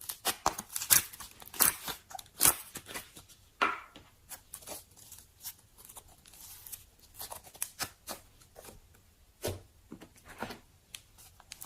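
Slime being squished and handled, giving a run of irregular crisp crackles and pops.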